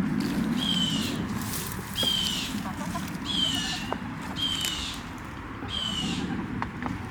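A bird calling repeatedly: a short, high call sliding down in pitch, given about once every second and a half, over a low steady rumble.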